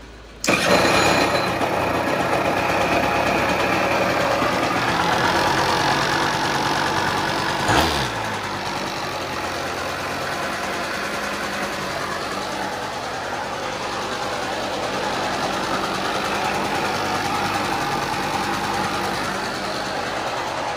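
Suzuki LT80 quad's small two-stroke single-cylinder engine starting suddenly about half a second in and running, louder for the first eight seconds or so, then settling a little lower into a steady idle. A single sharp knock sounds just before the level drops.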